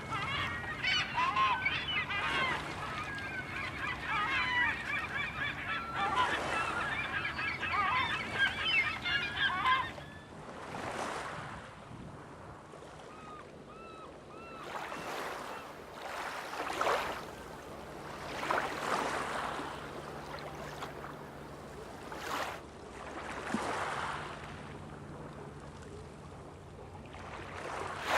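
A flock of birds calling densely over one another for about the first ten seconds, then thinning to a few scattered calls. Waves wash in every few seconds.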